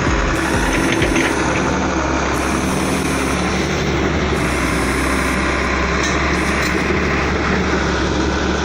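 Diesel engine of heavy earthmoving machinery running steadily, with a dense mechanical clatter over it.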